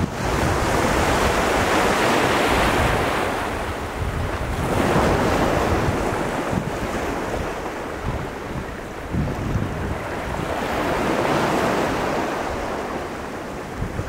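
Ocean surf washing against rocky sea cliffs, rushing in swells that peak near the start, about five seconds in and again around eleven seconds. Strong wind buffets the microphone with a constant low rumble.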